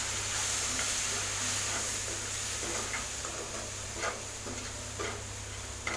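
Hot milk sizzling in a pan of ghee-roasted semolina, coconut and sugar, with a spoon scraping and tapping the pan now and then as it is stirred. The hiss slowly dies down.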